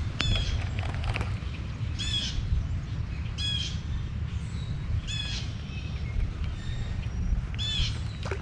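A bird calling repeatedly: about five short calls, one every second or two, over a steady low rumble.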